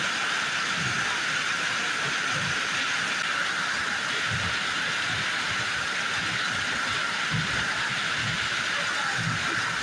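Steady hissing, rushing noise that runs on without change, with irregular soft low thumps beneath it.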